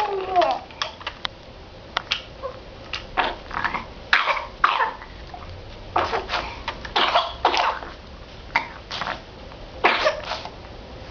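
A five-month-old baby making a series of short coughs and throaty gurgles, one every second or so.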